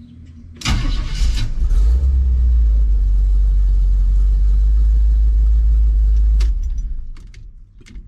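1983 Chevy C10 pickup's engine started on the key of a newly replaced ignition lock cylinder: it catches just under a second in, runs steadily at idle, and is switched off about a second and a half before the end, a click and then the engine dying away.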